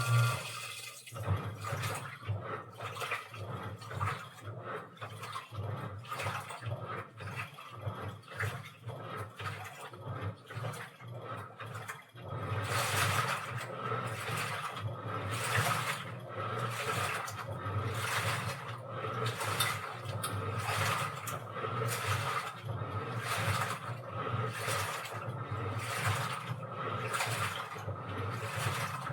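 Washing machine running: a steady pump hum cuts off right at the start, then water sloshes in the turning drum. About twelve seconds in it gets louder, with a regular swish roughly once a second.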